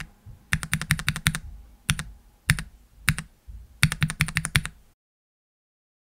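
Typing on a mechanical keyboard with lubed (205g0) Gateron Yellow linear switches without switch films: quick runs of keystrokes with a few single presses between them. The typing stops about five seconds in.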